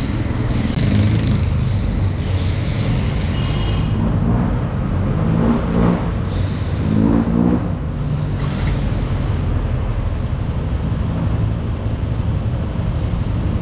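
Yamaha Mio 125i automatic scooter's single-cylinder engine running under way on a test ride after a front fork repair, with a steady low road and engine rumble. The engine note rises briefly twice near the middle.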